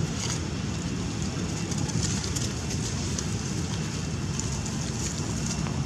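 Steady outdoor background noise: a low rumble with a hiss above it and faint scattered crackles.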